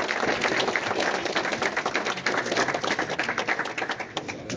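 Audience applauding: dense, steady clapping that drops away sharply at the very end.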